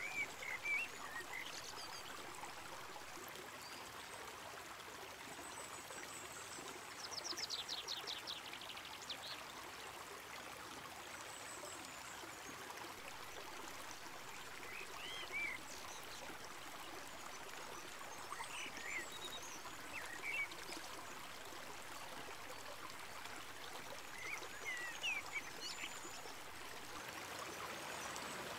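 The Erlauf river rushing over stones and small rapids, a steady rush of water, with short high chirps now and then and a rapid trill about seven seconds in.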